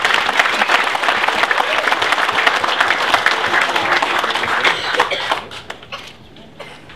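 Crowd applauding, a dense patter of many hands clapping that dies away after about five seconds, leaving a few scattered claps.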